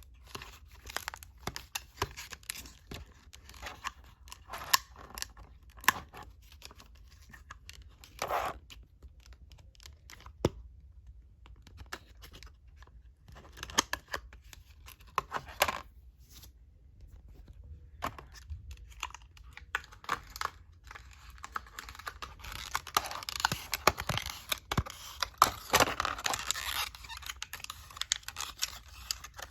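Packaging of a new laptop RAM stick being opened by hand: irregular clicks and crinkles, with a denser stretch of tearing and rustling near the end.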